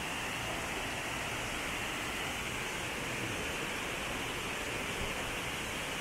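Waterfall rushing: a steady, even hiss of falling water that does not change.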